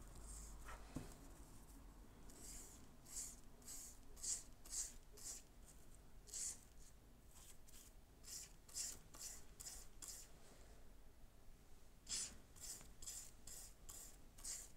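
Faint, quick strokes of a small stiff-bristled brush scrubbing weathering powder into grooved styrene plastic card, about two strokes a second, in two runs with a short pause between them.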